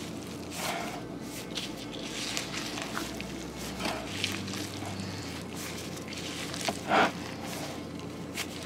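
Rubber-gloved hands kneading raw ground-beef meatloaf mixture in a bowl: soft, irregular squishing, with one louder squish about seven seconds in.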